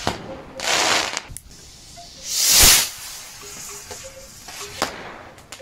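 Fireworks: bursts of hissing, the loudest a swelling whoosh with a sharp crack at its peak about two and a half seconds in, with a few fainter cracks.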